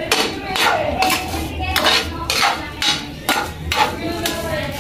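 Spatula scraping and knocking against a non-stick frying pan, about two strokes a second, while stirring grated coconut and sugar as it dry-toasts.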